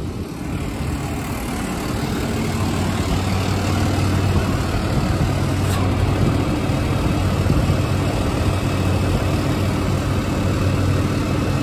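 Vacuum truck engine running with a steady hum, growing louder over the first couple of seconds and then holding even. The raised dump tank's hydraulic cylinder is snagged at full extension, so the tank won't come down.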